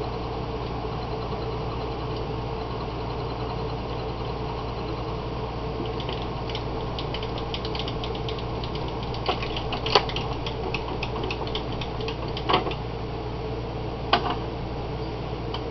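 A steady low machine hum. From about six seconds in, a rapid run of light ticks as a hand-held center drill cuts a starter hole for the draft hole into a wooden pipe block spinning in a wood-lathe chuck, with a few sharp knocks in the second half.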